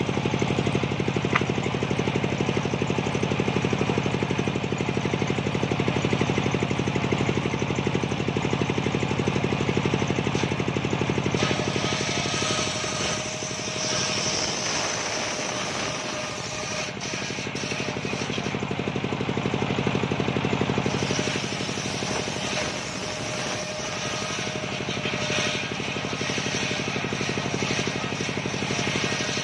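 Homemade engine-driven table saw with a large toothed circular blade running steadily while ripping coconut wood planks. From about 12 to 21 seconds in, the running note weakens and a higher cutting hiss comes in as the blade works through the wood; a shorter stretch of the same comes near the end.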